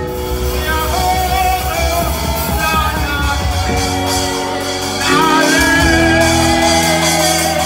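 Live church worship music: a singer on a microphone leads the singing over an amplified instrumental accompaniment with a steady bass line. It grows a little louder about five seconds in.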